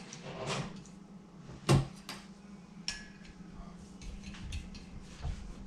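Metal parts and hand tools handled on a workbench: a few separate knocks and clinks, the loudest a little under two seconds in, over a steady low hum.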